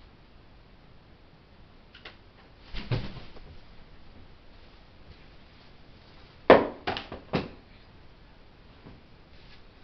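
A juvenile herring gull's wings flap with a soft rustle and thud as it hops up onto a sofa, about three seconds in. A little past halfway come three sharp knocks in quick succession, the first the loudest.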